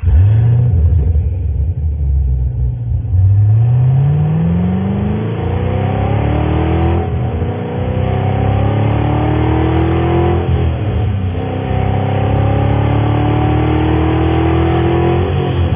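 Chevrolet Camaro Z28's V8 engine accelerating. It runs steady for a few seconds, then its pitch climbs with the revs and falls back sharply three times as it shifts up through the gears.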